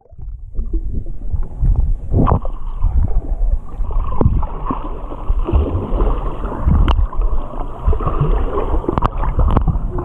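Water rushing and bubbling around an action camera held underwater while a snorkeler swims, a steady dull wash with scattered knocks and clicks.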